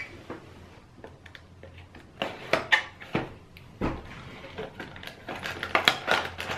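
Packaging being handled and opened: scattered taps, clicks and crinkles of a cardboard box and plastic wrapping, more frequent from about two seconds in.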